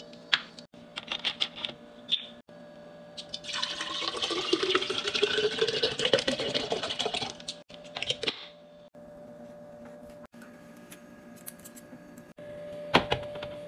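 Liquid poured into a container for about four seconds, its pitch rising steadily as the container fills. Before and after it come scattered clicks and knocks of containers being handled.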